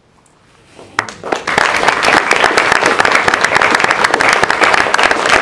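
Audience applauding, beginning about a second in: many hands clapping in a dense, loud patter.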